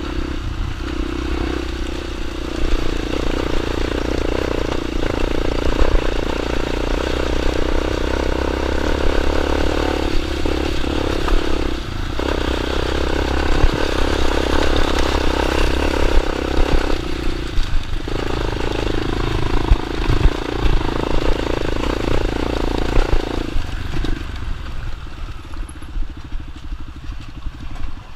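Small dirt bike engine running, its sound dipping briefly several times and fading near the end.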